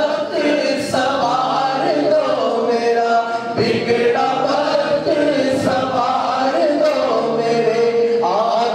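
A man singing a naat, an Islamic devotional poem in praise of the Prophet, without instruments: long held notes with ornamented, winding pitch glides.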